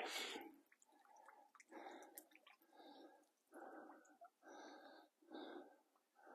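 Faint, quick breathing, one short breath about every second, from a man holding a heavy carp.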